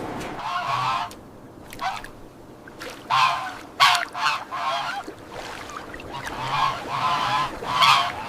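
Geese honking: a run of short, nasal calls repeated irregularly, several in quick succession.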